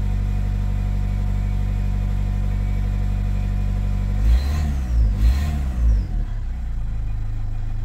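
Renault Clio IV engine idling on a cold-engine fast idle, a steady hum. Around the middle there is a stretch of uneven, wavering running with a few low thumps, and then it settles to a lower, steady idle.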